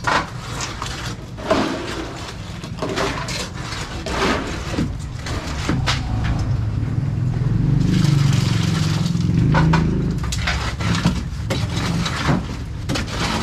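Concrete of cement, sand and gravel being poured from buckets into beam forms and spread: repeated scrapes, knocks and gravelly crunching over a steady low hum. A louder stretch of rushing noise lasts a couple of seconds around the middle.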